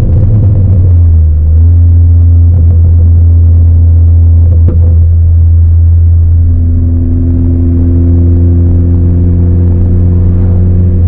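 2018 Ford Focus ST's turbocharged 2.0-litre four-cylinder engine and straight-piped Roush exhaust droning heavily on the move, heard from inside the cabin. The engine note steps up a couple of times, and there is one sharp click about halfway through.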